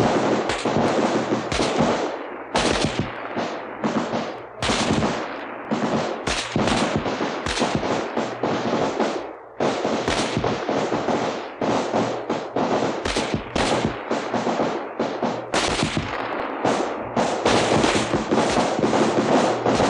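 Battle sound effect: many rifles firing at will, dense and irregular overlapping shots with echo, thinning briefly about halfway through before picking up again.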